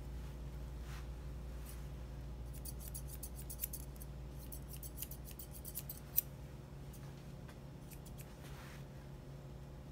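Grooming shears snipping through a Bichon puppy's fur as its head is trimmed: quick runs of small metallic cuts, thickest in a flurry from about two and a half to six seconds in. A low steady hum sits underneath.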